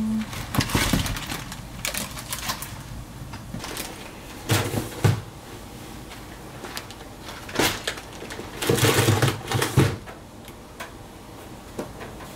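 Scattered clicks and knocks of objects being handled, louder about a third of the way in and in a run of clattering knocks after about two-thirds, then quieter.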